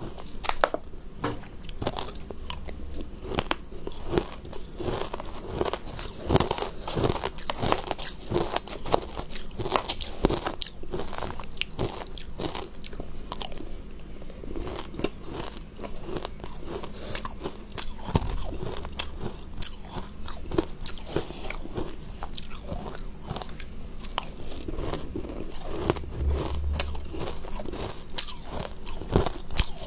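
A person biting and chewing mouthfuls of shaved ice close to a clip-on microphone: a dense run of crisp, crackling crunches, many a second.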